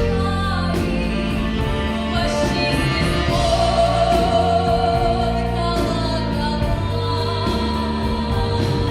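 A woman sings a song in Russian folk style over orchestra accompaniment, holding one long high note for about two seconds near the middle.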